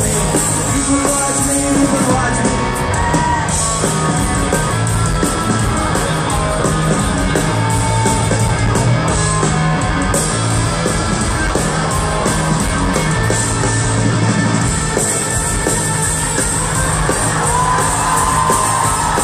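A rock band playing live on electric guitars and drums, with singing, heard from within the audience in a large concert hall.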